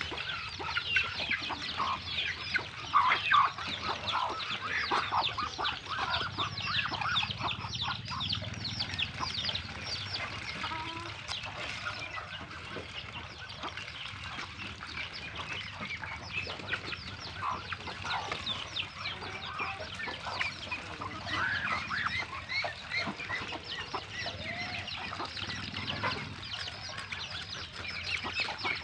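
A flock of chickens clucking and cheeping at once in a steady, dense chatter while they eat feed, with ducks feeding among them.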